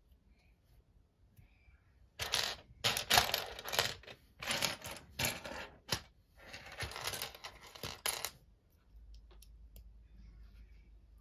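Loose plastic Lego bricks clattering and rattling as a hand rummages through a pile of pieces on a table, in a run of bursts lasting about six seconds. Near the end, faint small clicks as a piece is handled.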